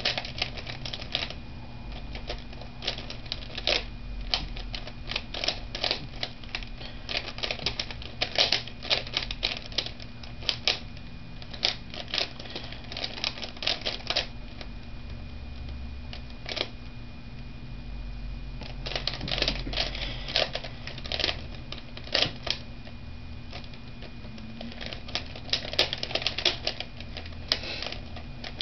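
Plastic twisty puzzles, a 3x3 Rubik's cube and a Square-1, turned fast by hand. They make dense runs of rapid clicking and clacking, broken by quieter stretches where the turning slows or pauses.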